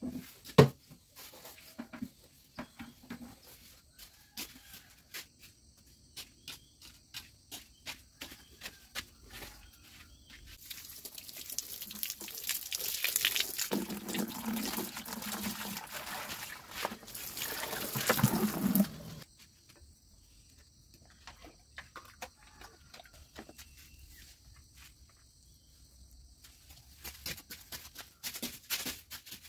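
Water running from a hose into a plastic bucket for about nine seconds, getting louder towards the end and cutting off suddenly. Scattered light knocks and clicks of handling come before and after.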